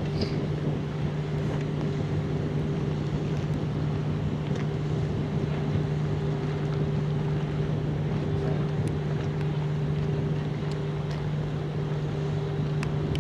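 Steady drone of ships' diesel engines, with two steady humming tones that do not change, and wind on the microphone.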